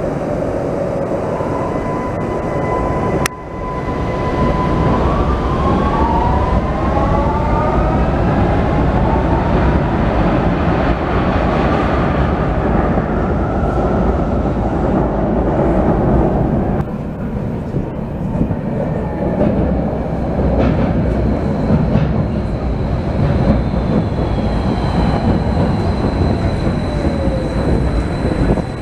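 Vienna U-Bahn metro trains running through an underground station, with a steady rumble of wheels on track. Several seconds in, a train pulls out and its motors give a rising whine. Later a high steady tone and a falling whine come in as a train slows into the platform.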